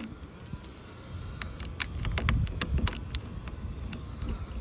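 Irregular small metallic clicks and rattles from aftermarket locking hood latches on a Jeep Wrangler being worked and tugged by hand, over a low rumble.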